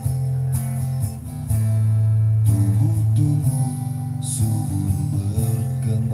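Music played through a Blazer guitar amplifier: guitar over a heavy bass line of long, held low notes that change every second or so.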